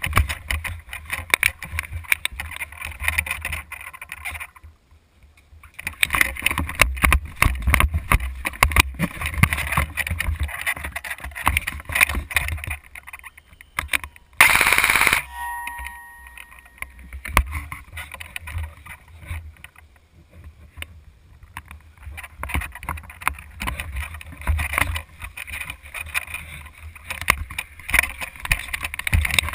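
Handling and movement noise from a camera mounted on an airsoft rifle: constant clicking, knocking and rattling over a low rumble as the player moves. About halfway through there is one loud burst lasting under a second.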